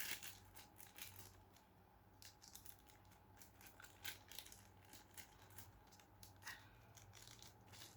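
Faint, scattered rustles and clicks of a packaged item being handled and unwrapped, over a low steady hum.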